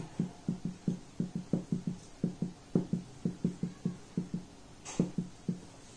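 Marker writing on a whiteboard: a quick, uneven run of short strokes, several a second, as the line of an equation is written out.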